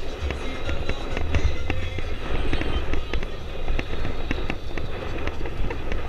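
Motorcycle ride heard through an action camera: wind buffeting the microphone as a steady low rumble, with many short sharp crackles and clicks scattered through it.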